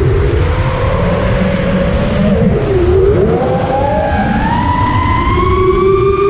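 5-inch FPV freestyle quadcopter's motors and propellers heard from its onboard camera: a whine that dips in pitch about three seconds in, then climbs steadily as the throttle comes back up. Heavy wind rush on the microphone runs under it.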